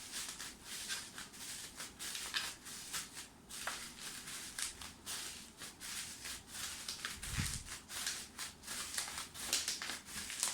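Plastic wrapping being peeled and crinkled off a product box, in irregular rustling crackles, with a soft low bump about seven seconds in.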